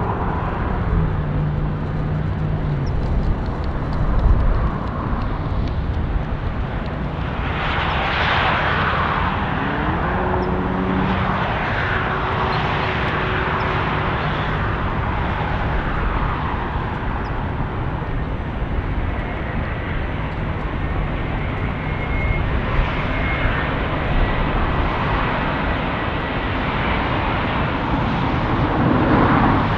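Airbus A350-900 jet engines (Rolls-Royce Trent XWB) as the airliner comes in to land: a loud, steady jet rush, brighter and more hissing from about seven seconds in.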